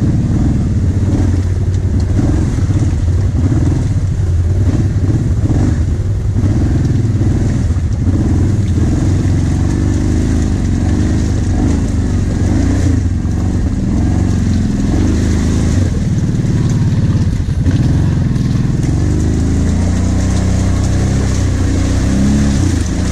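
Kawasaki Brute Force 750 ATV's V-twin engine running under load while driving through a muddy rutted track, its revs rising and falling with the throttle.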